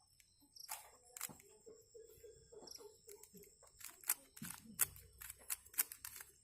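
Rubik's cube being twisted by hand: a string of irregular plastic clicks from the layers turning, coming faster in the second half.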